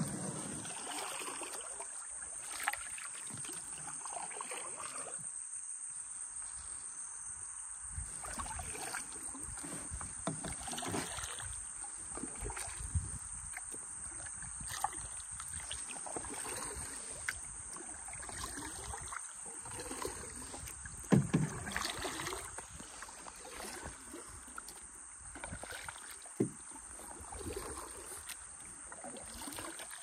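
Kayak paddles dipping and splashing in the water at an irregular pace, with a few sharp knocks. A steady high-pitched drone continues behind them.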